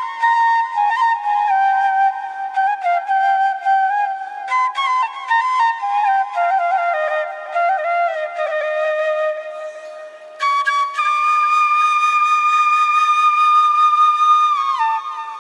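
Background music: a single melodic line that steps downward, then one long held note that bends down near the end.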